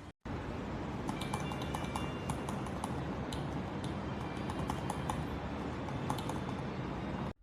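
Typing on a mechanical keyboard: quick, irregular keystroke clacks from the switches over a steady background hiss, cutting off abruptly near the end.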